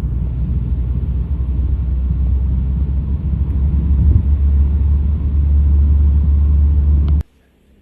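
A loud, steady low rumble with a fainter hiss above it, with no speech; it cuts off suddenly near the end.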